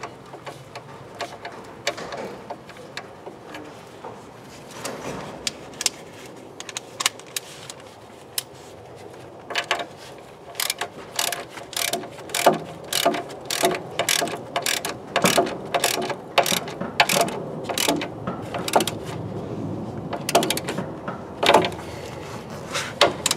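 Ratchet wrench clicking as the nut of a new anti-roll bar link is tightened; scattered clicks at first, then quick runs of clicks from about the middle on.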